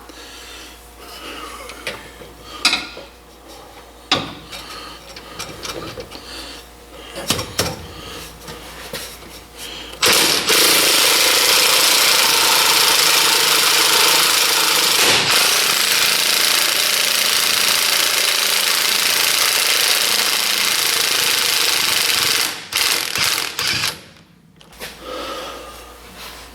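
Impact wrench hammering steadily for about twelve seconds on a hard-to-reach bolt, with scattered clicks and knocks of tools before and after it.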